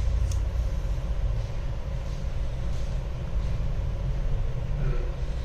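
Steady low background rumble with a faint constant hum above it, and one light click about a third of a second in.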